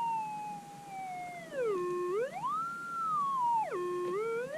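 Minelab GPX 6000 metal detector's audio: a steady threshold tone that twice swoops down low and then up high as the coil is swept over a buried target. The target is still there in the rock.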